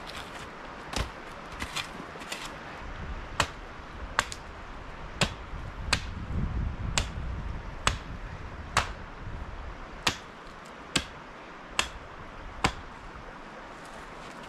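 An axe chopping wood: about a dozen sharp strikes, roughly one a second, in a steady rhythm.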